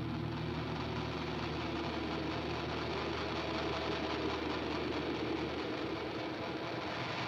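Hard rock intro music: a dense, steady wall of distorted electric guitar, with held low notes that shift about six seconds in.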